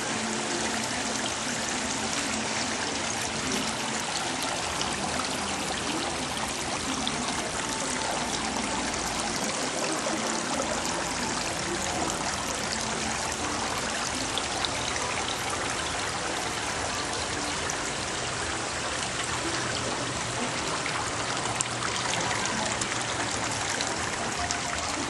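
Water steadily splashing and trickling from the fountains and sprinklers of a children's water-play area.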